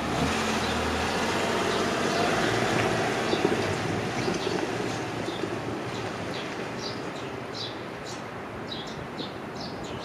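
Rumble of a JR Tokaido Line train fading as it moves away from the level crossing, with a low hum in the first second as the crossing barriers lift. Small birds chirp repeatedly in the second half.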